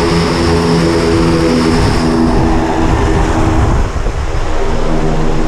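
Engine and propeller of a single-engine high-wing plane running on the ground, a loud steady drone.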